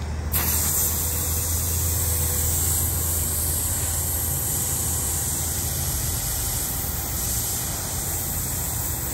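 Water jetting from a hand-held spray gun fed by a Goulds 3/4 HP booster pump, a steady hiss that starts about a third of a second in, over a steady low machine hum.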